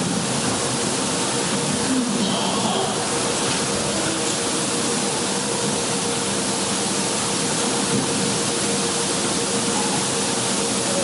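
A steady, fairly loud hiss, over faint shuffling and murmuring as a congregation takes its seats.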